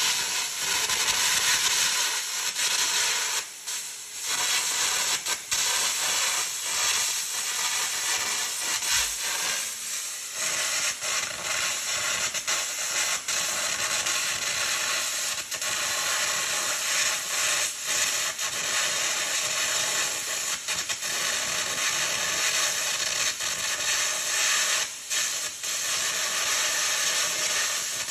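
A steady, loud hiss, strongest in the high range, with brief dips about four seconds in and again near the end.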